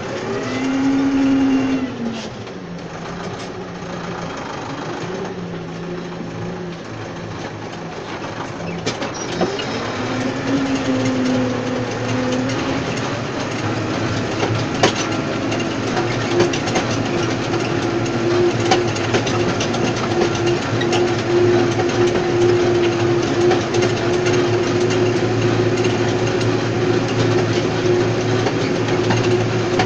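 Tractor engine running while pulling a tine stubble cultivator. Its pitch shifts and glides during the first dozen seconds, then settles into a steady note under load as the tines work the soil. Scattered clicks and knocks run through it.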